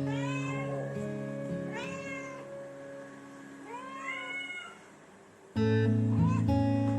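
A domestic cat meowing three times, each meow rising then falling in pitch, over background music that drops away and comes back louder near the end.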